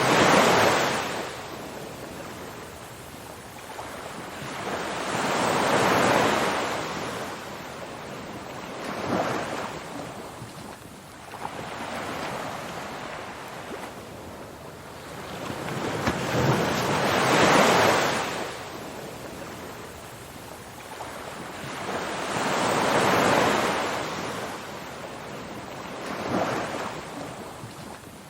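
Ocean waves breaking and washing on a shore, a wide hiss that swells and fades every few seconds.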